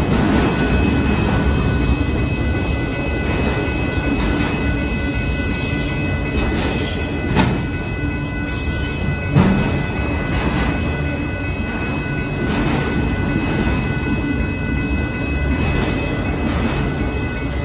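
Union Pacific auto train's autorack cars rolling past: a steady rumble of wheels on rail with a faint steady high squeal over it, and two louder clanks about seven and nine seconds in.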